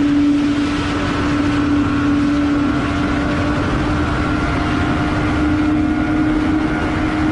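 Motorcycle engine held at steady high revs at highway speed, its pitch creeping slightly upward, over heavy wind rush.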